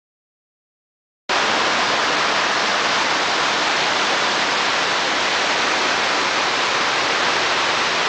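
Fast water rushing over a ledge in a channel: a steady, loud rush that starts abruptly about a second in.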